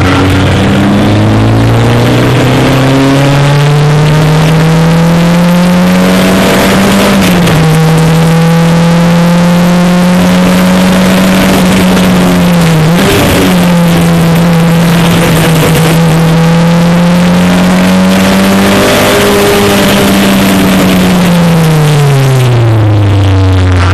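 Single-seater racing car's engine under hard acceleration, heard onboard: the pitch climbs over the first few seconds, drops briefly twice at gear changes, holds steady, then falls away near the end as the car slows for a corner.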